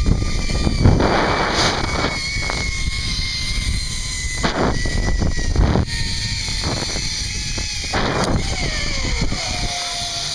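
Zip-line trolley pulleys running along the steel cable with a thin whine that slowly falls in pitch, under gusts of wind buffeting the microphone. Near the end the whine slides lower as the rider slows at the landing platform.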